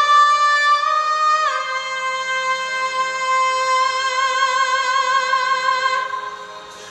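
A woman singing one long, high, sustained note with vibrato. The note steps down slightly about a second and a half in, is held, and fades out near the end.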